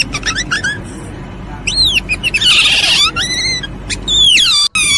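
Birds calling: a rapid series of high-pitched chirps and short falling peeps, with a harsher squawk about halfway through.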